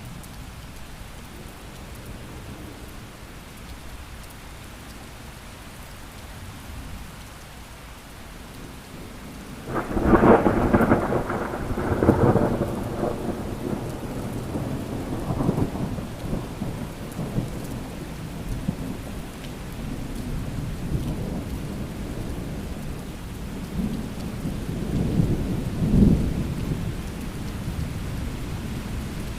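Thunderstorm: steady rain with a loud clap of thunder about ten seconds in that rolls on for several seconds, then a second, shorter rumble near the end.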